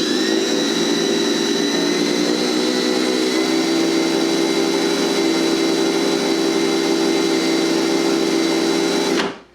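Drill running in reverse with a screw-extractor bit pressed into a stripped screw head. It winds up in pitch at the start, runs at a steady speed, and stops shortly before the end. The extractor is not biting into the screw.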